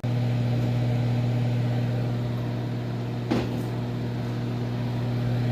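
Microwave oven running, a steady low electrical hum while it cooks the cake batter, with one brief click about three seconds in.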